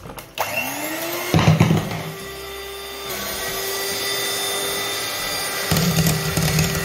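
Electric hand mixer switched on, its motor whine rising in pitch as it spins up about half a second in, then running steadily as it whips cream in a glass bowl. A brief clatter comes about a second and a half in, and a louder rattling sets in near the end.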